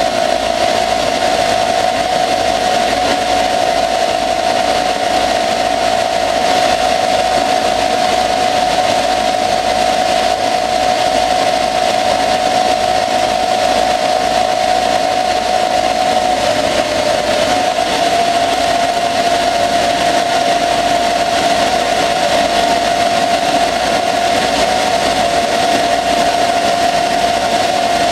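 Small CNC lathe turning a steel axle under flood coolant: a steady high motor whine over the hiss of cutting and coolant spray. The whine dips slightly in pitch about 16 seconds in and comes back up a second or so later.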